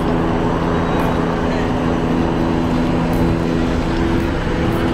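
A large engine running steadily: an even drone at one fixed pitch, with a rushing noise over it.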